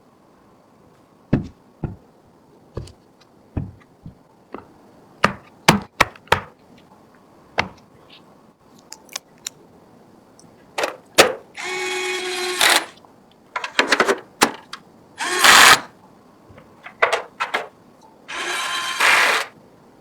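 Computer parts being handled and fitted during a PC build: a string of sharp clicks and knocks, with three short whirs of a small motorised tool, the loudest near the end.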